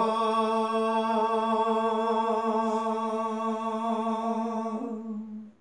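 A man's unaccompanied voice holding one long, steady sung note in a Gojri bait (sung folk verse), stopping about five and a half seconds in.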